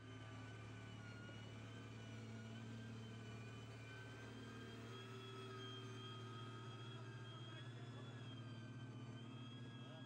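An engine running steadily at constant speed: a low hum with faint whining tones above it that drift slightly in pitch.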